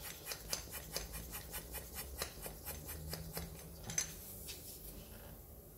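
Quick repeated scratching strokes of a small hand tool on a scooter's rubber inner tube during a puncture repair, about three or four a second, fading out near the end.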